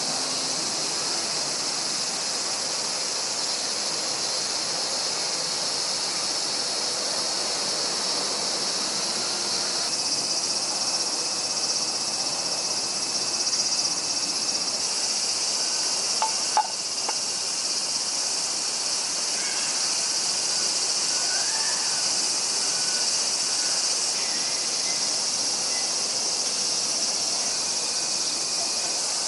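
A dense chorus of insects chirring steadily and high-pitched, with a single sharp click about sixteen seconds in.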